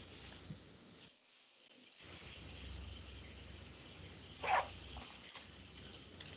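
Faint steady high hiss with a low hum underneath, cutting out for about a second near the start, and one short faint sound about four and a half seconds in.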